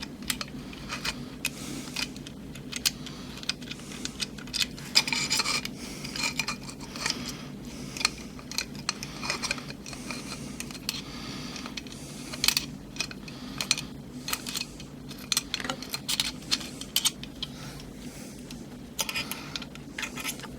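Small metal parts, screws and tools clicking and clinking as a 3D printer kit is put together by hand: irregular sharp clicks and brief rattles, busiest about five seconds in, over a low steady hum.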